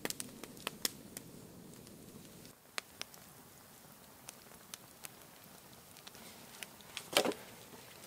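Wood campfire crackling, with scattered sharp pops at irregular intervals, over faint outdoor background noise; one brief louder sound just before the end.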